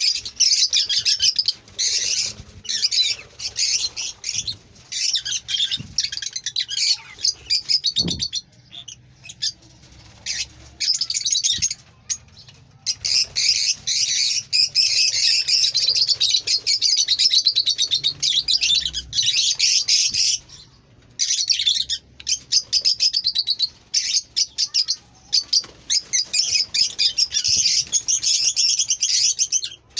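Pet parrots chirping and chattering rapidly in dense, high-pitched runs, with a quieter lull about a third of the way in.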